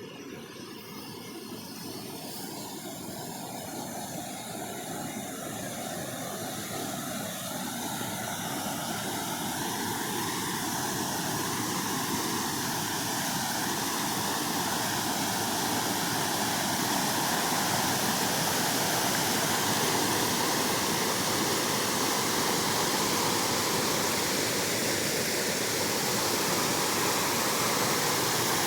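Waterfall rushing: a dense, steady roar of falling water that grows louder over the first fifteen seconds or so, then holds even.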